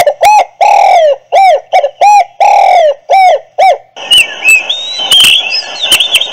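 Custom electronic motorcycle sound-effect horn, used as a brake warning, playing its recorded bird-call sound loudly through its speaker: a quick run of short rising-and-falling chirps, about two or three a second, which about four seconds in changes to higher, warbling calls.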